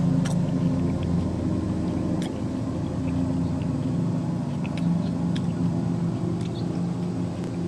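A steady low machine hum runs throughout, with a few soft clicks and the chewing of a bite of ripe tomato.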